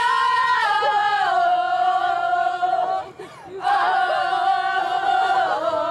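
A group of young women's voices in unison, holding two long sung notes of a team huddle chant. The first note steps down in pitch partway through, with a short break for breath about three seconds in.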